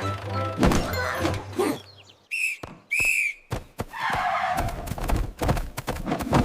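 Cartoon sound effects: a run of thunks and knocks, with two short, high, whistle-like tones about two and a half and three seconds in.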